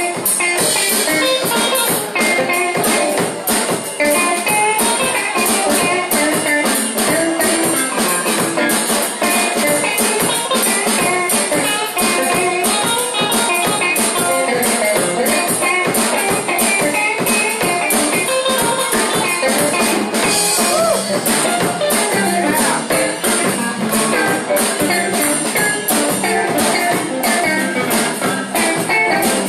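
Live band playing an instrumental break of a blues-rock song: guitar over bass and a drum kit keeping a steady beat.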